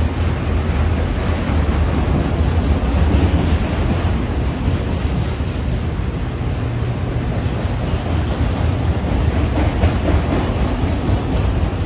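Freight train of autorack cars rolling past: a steady noise of steel wheels on the rails, heaviest in a low rumble.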